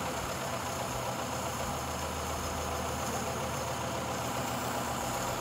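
Four-cylinder carbureted gasoline engine running steadily at idle on glow plugs fitted in place of its spark plugs. It fires by hot-bulb-style ignition, the plugs kept red hot by the combustion.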